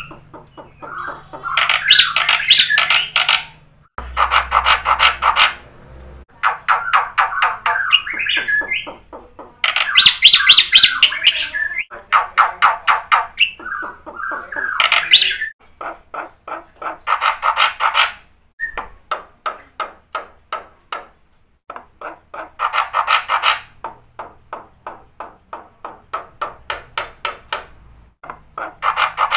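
Black-winged starling (jalak putih) singing a loud chattering song: phrases of rapid repeated harsh notes, each phrase one to three seconds long, broken by short pauses.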